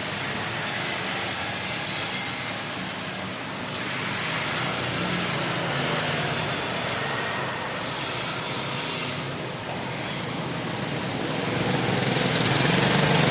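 Small engine of a Viar three-wheeled motor tricycle running with a strong hiss over a low hum. The sound swells and dips every second or two and gets louder near the end.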